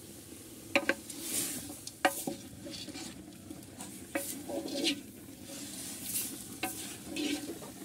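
Meat frying with a sizzle in a large metal pot while a ladle stirs it, scraping through the pieces. The ladle knocks sharply against the pot four times.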